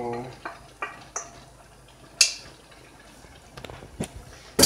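A few sharp knocks and clatters of cookware as a perforated metal pasta strainer insert tips cooked spaghetti back into the pot and a wooden spoon begins stirring it; the loudest knock comes about two seconds in.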